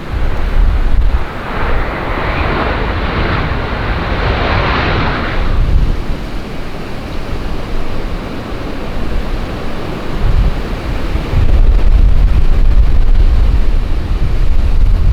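Strong wind buffeting the microphone with a low rumble, gusting harder in the last few seconds. From about one to five seconds in, the jet engine noise of a passing airliner rises and then fades under the wind.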